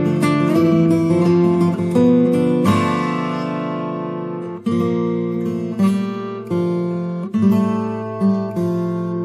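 Background music on acoustic guitar: plucked notes and strummed chords.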